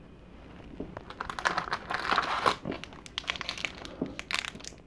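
Crinkling and rustling of a wax trading-card pack wrapper as a pack is pulled from the box and handled. The irregular crackle starts about a second in and dies away just before the end.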